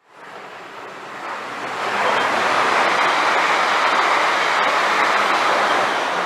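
A train passing through the station at speed: a rushing noise of wheels on rail and air that builds over about two seconds, holds loud, and begins to fade near the end.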